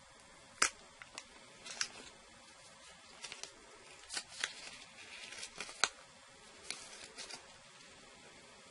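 Handling of a new Apple Watch and its strap: a scattering of small sharp clicks and brief rustles as it is turned and worked in the fingers. The clicks fall still near the end.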